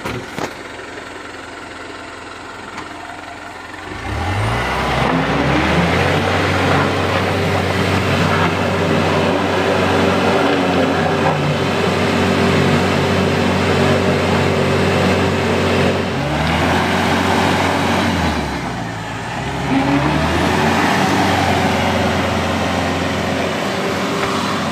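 Heavily loaded timber truck's diesel engine revving hard as it forces its way through a deep mud rut. The revs climb about four seconds in, hold high for a long stretch, ease off twice and build again.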